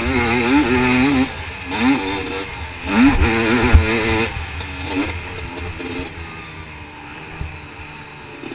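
Motocross dirt bike engine heard from on board, revving hard up and down through the gears for the first four seconds, then running quieter and lower as the rider eases off the throttle.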